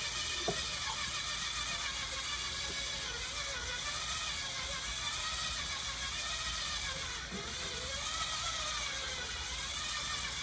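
Drill-style electric whisk running at low speed, beating eggs in a bowl: a steady motor whir whose pitch wavers slightly as the whisk churns the egg.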